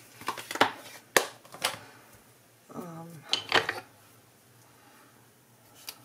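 Hard plastic clicks and taps of a clear acrylic stamp block and a clear stamp being handled on the craft table, with a sharp click about a second in and a cluster of clicks near the middle. A short hummed voice sound comes just before that cluster.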